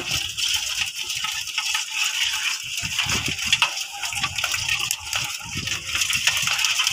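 Live freshwater crabs clicking and scraping against an aluminium basin holding a little water, with the crackle of a crab's shell and legs being pulled apart by hand. A steady high hiss lies underneath.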